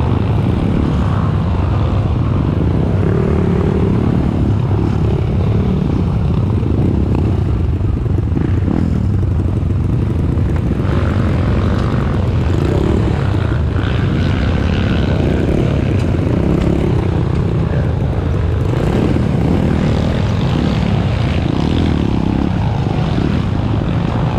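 Trail motorcycle engine running steadily while riding, a dense low drone with small rises and falls in speed.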